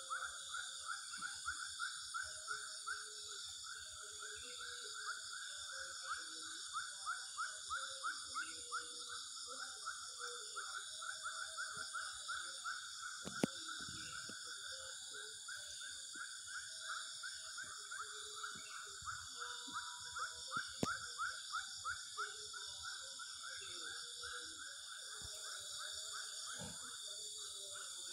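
Dusk chorus of calling animals: a steady high-pitched insect buzz over a fast, rhythmic pulsing call of several beats a second. Two sharp clicks cut in, one about halfway through and one some seconds later.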